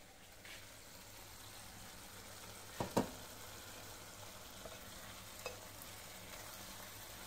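Prawns and chopped tomatoes sizzling softly in a non-stick pan on a gas burner, stirred with a wooden spatula. Two sharp knocks come about three seconds in.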